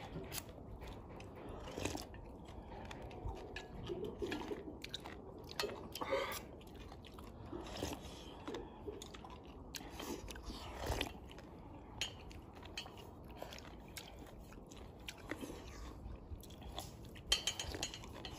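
A person slurping, chewing and swallowing thin cornmeal porridge (hutu) from a stainless-steel bowl. The small wet mouth sounds come at an irregular pace.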